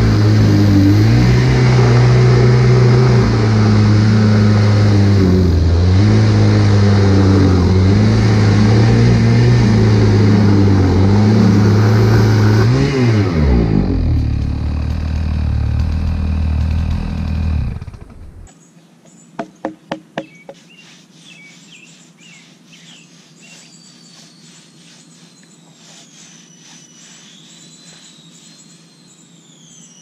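Two-stroke chainsaw on an Alaskan chainsaw mill running at full throttle as it rips lengthwise through an ash log, its pitch dipping and recovering after about 13 seconds, then running lighter as the bar breaks out of the end of the cut, and shutting off about 18 seconds in. A few sharp clicks follow, then quiet with a bird calling in sliding notes.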